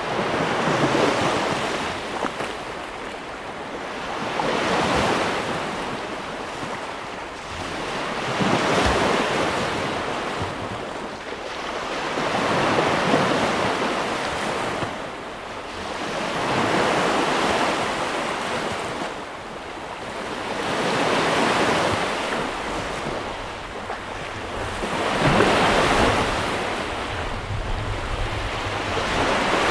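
Sea waves breaking and washing on a shore, each wave a rush of surf that swells and fades, one about every four seconds.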